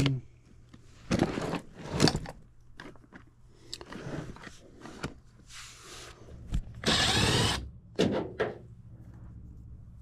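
A cordless drill-driver runs in one short burst of just under a second, about seven seconds in. Clunks and handling knocks come before and after it.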